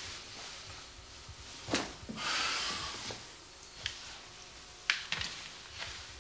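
Clothing rustling as a work coat is taken off and hung on a wall hook, with a few sharp clicks of the hanger and hook, the loudest a little under two seconds in and about five seconds in.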